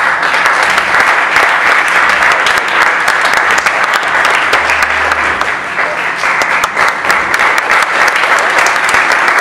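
Audience applauding loudly, starting all at once and holding steady.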